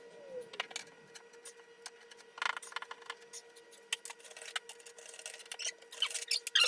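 Scattered small clicks and taps of hands handling something, with a brief scrape about two and a half seconds in and busier clicking near the end, over a faint steady hum.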